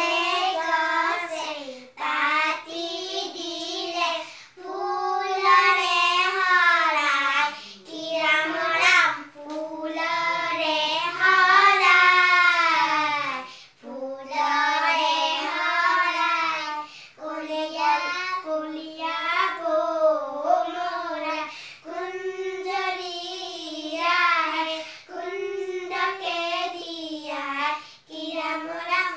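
Young girls singing an Assamese poem in their own voices, unaccompanied, in long phrases with held, wavering notes and short pauses for breath between them.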